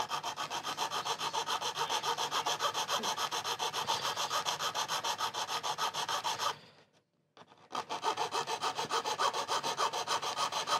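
A hand tool worked back and forth on wood in rapid, even strokes, about four or five a second, pausing for about a second after six seconds and then starting again.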